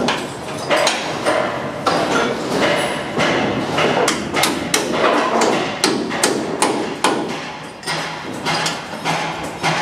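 A hammer striking the aluminium formwork beams and panels overhead, repeated blows at roughly two a second, somewhat irregular, over steady background noise.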